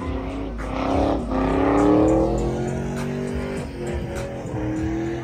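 Pickup truck engine revving hard during a burnout, its pitch climbing from about a second in and loudest around two seconds in. Music plays underneath.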